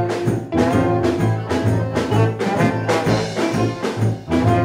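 Live band playing an upbeat instrumental passage: accordion, tuba, electric guitar, drum kit and a brass horn. A steady beat of about two strokes a second under a pumping bass line.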